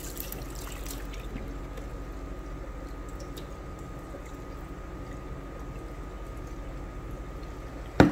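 Water draining from a tipped bowl of chicken into a stainless steel sink, the pour thinning to a trickle and drips after about a second, over a steady low hum. A sharp knock near the end.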